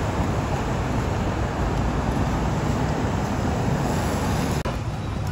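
Steady city street traffic: cars and motorbikes passing in a continuous rumble. Near the end it drops suddenly to a quieter sound.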